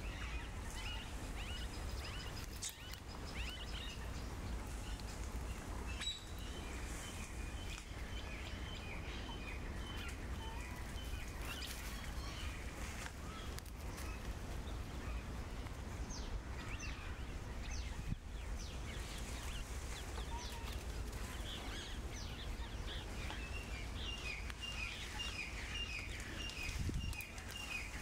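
Small birds chirping in quick runs of short calls, busier near the end, over a steady low rumble of outdoor ambience.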